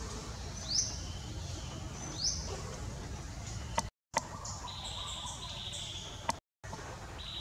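Short high-pitched chirping calls over a steady low background rumble: quick upward-sweeping chirps in the first half, then briefly held notes alternating between two pitches. The sound cuts out abruptly twice, with a click at each edit.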